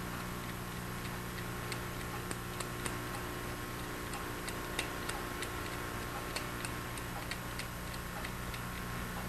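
Light, irregular clicks and ticks of small hand tools against the small metal parts of a fiber endoscope as a channel ferrule is worked loose, over a steady electrical hum.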